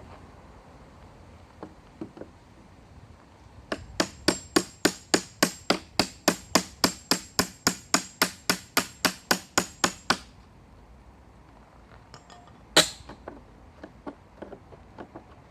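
Claw hammer striking a floorboard chisel, driving it under a pallet slat: a quick, even run of about two dozen metallic blows, roughly four a second, each with a high ring. A few seconds later there is one harder single strike.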